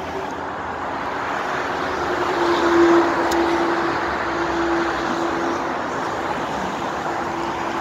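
Steady motorway traffic noise from vehicles passing beneath the bridge. It swells to a peak about three seconds in, with a steady hum that holds through the second half.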